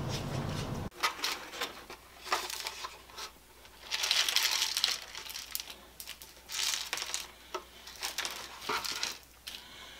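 Small chips of ground HDPE bottle-cap plastic pattering and rattling as they are poured from a plastic tray through a funnel, in several short bursts with crinkly handling of the tray. The longest pour comes about four seconds in.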